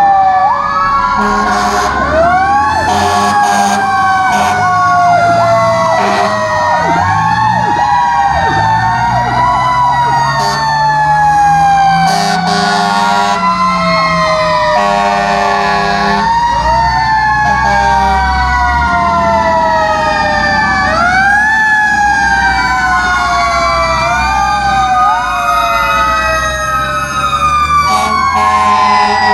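Several fire truck sirens wailing at once, their pitches rising and falling out of step with each other, with repeated horn blasts and the low rumble of the trucks' engines underneath.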